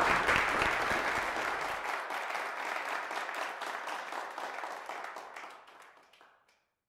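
Audience applauding, the clapping fading away gradually and stopping about six seconds in.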